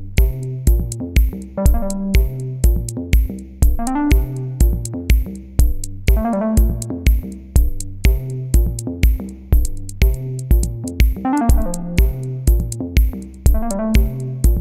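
Electronic background music: a steady drum-machine beat, about two beats a second, under synthesizer bass and melody.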